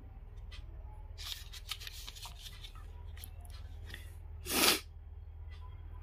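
Light rustles and clicks of a plastic blister pack on its card being handled and put down, with one short, louder rush of noise about four and a half seconds in, the loudest sound here. A steady low hum runs underneath.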